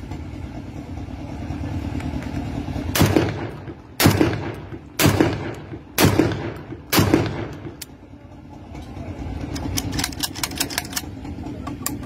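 Five single gunshots from a locally made 12-bore rifle-pattern gun fired one at a time, about a second apart, each trailing off with an echo.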